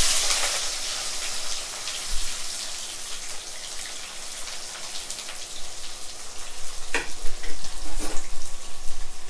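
Sliced onions hitting hot oil in an aluminium kadai: a loud sizzle starts suddenly and slowly settles into a steady crackling fry, with the oil spattering.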